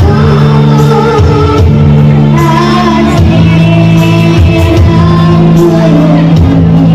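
A young girl singing a slow song into a handheld microphone over a loud backing track, her voice amplified.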